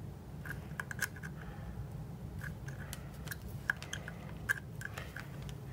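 Multimeter probe tips scratching and clicking against the metal terminals and chassis of a transformer: scattered small ticks, two sharper clicks in the second half, over a steady low hum.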